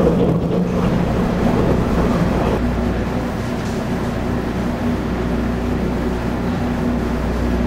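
Steady rumble and hum of a JR East 485-series electric train heard from on board. The rougher running noise settles into a steadier hum with a held low tone about two and a half seconds in.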